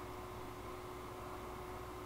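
Steady low hiss with a faint constant hum: room tone, with no distinct sound event.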